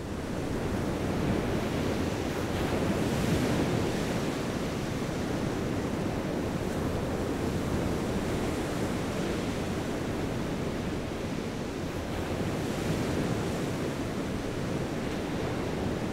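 Ocean surf washing steadily, mixed with wind, swelling a little twice.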